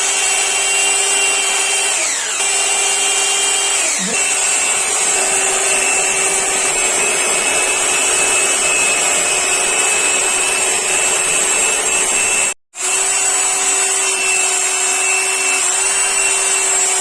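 Electric drill running a hole saw cutter through a metal gland plate, a steady motor whine over grinding. The pitch sags twice in the first few seconds as the cutter loads the motor, and the sound cuts out for a moment about three-quarters of the way through.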